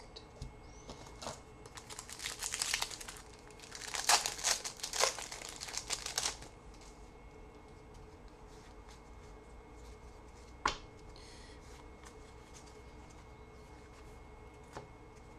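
Trading card pack wrapper being torn open and crinkled, in bursts over a few seconds, followed later by a single sharp tap.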